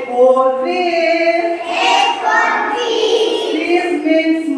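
A group of young children singing an alphabet song together, in held, sung notes.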